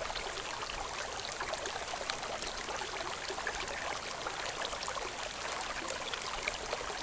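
Water running steadily, a trickling, splashy hiss with small scattered drips.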